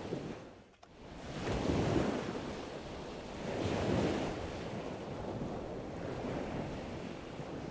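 Ocean waves washing on a shore, with two larger surges about a second in and around four seconds in, then a steady wash.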